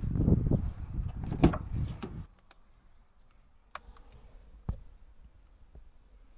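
Rumbling handling noise from a hand-held phone microphone being moved about for about two seconds, then quiet with two sharp clicks about a second apart as a car door is opened.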